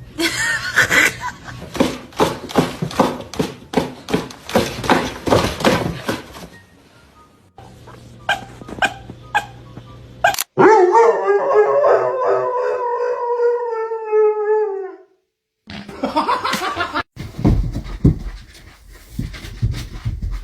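Dogs vocalising: a run of quick, short yips and woofs, about two or three a second, then one long howl that sinks slowly in pitch over about four seconds, then more short yips and woofs near the end.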